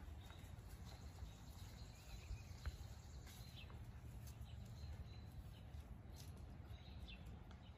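Faint outdoor ambience: a steady low rumble, with a few short, distant bird chirps now and then.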